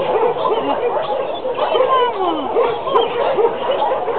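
Many dogs barking and yelping at once, their calls overlapping without a break.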